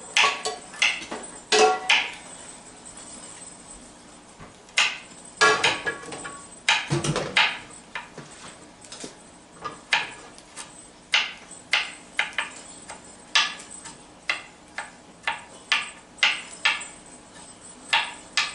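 Kitchen knife chopping garlic on a wooden cutting board: sharp, irregular taps, often in quick pairs, about two a second.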